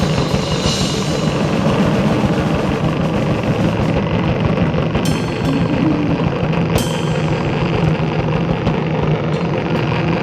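Live noise music: a loud, dense, unbroken wall of distorted sound over a steady low hum, with two sharp crashes about five and seven seconds in.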